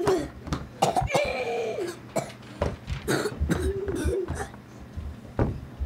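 Children shrieking and making drawn-out, wordless vocal noises that slide down in pitch, mixed with sharp knocks and bumps close to the microphone.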